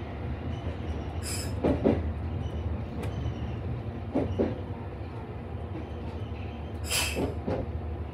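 Electric train running at speed, heard from inside the front car: a steady low rumble, with wheels knocking in quick pairs over rail joints three times. Two brief high hisses or squeals come from the wheels, one early and one near the end.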